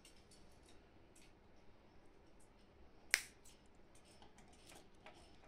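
Scissors snipping through small hard plastic toy pieces: faint clicks and snips, with one sharp, loud snap about three seconds in as a piece is cut through.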